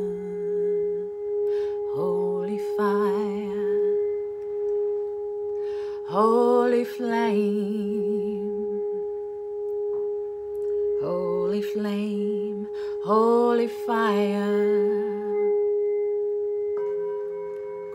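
Brass singing bowl rimmed with a wooden mallet, holding one steady ringing tone with a fainter overtone above it. Over it a woman's voice sings several wordless phrases with vibrato, each swooping up at its start.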